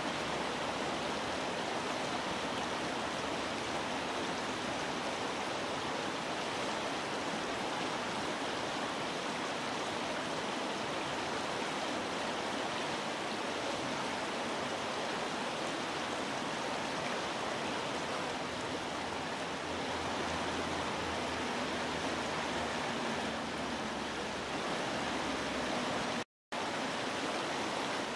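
Steady rushing of a stream flowing over stones, with a momentary cut to silence near the end.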